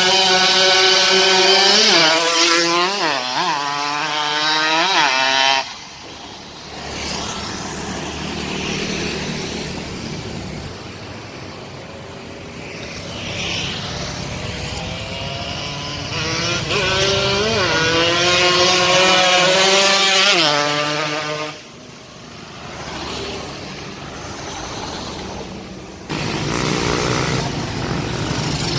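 Yamaha RX-King two-stroke single-cylinder engine, fitted with a Kimcil ignition magnet, revved hard in two bursts of about five seconds each. Its pitch climbs and dips during each burst, then drops suddenly back to a steady idle. It picks up again near the end.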